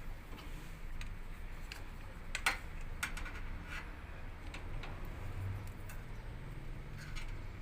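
Scattered light clicks and taps at irregular intervals, the sharpest about two and a half seconds in, over a low steady hum.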